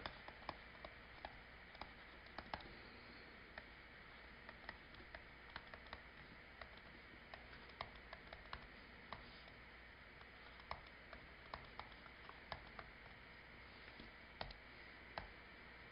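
Near silence with faint, irregular light clicks and taps of a pen writing out an equation.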